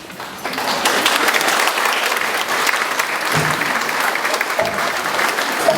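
Audience applauding, the clapping rising sharply about half a second in and then holding steady.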